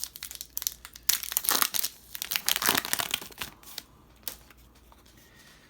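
Wrapper of a trading card pack being torn open and crinkled: a dense run of crackling and tearing for about three and a half seconds, then only light handling noise.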